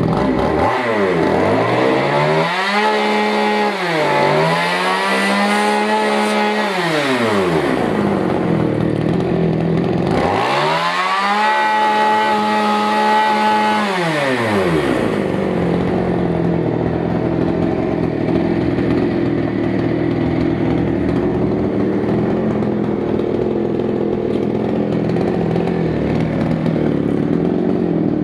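Small Krisbow petrol generator engine running, revved up and held high twice, about a second in and again about ten seconds in (with a brief dip near the four-second mark), dropping back each time. It then runs steadily at a lower speed for the second half.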